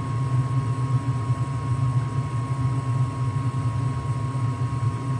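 Lennox gas furnace running steadily in heating mode, a constant low hum with a thin steady tone above it; its newly replaced inducer fan motor runs smoothly with no abnormal noise.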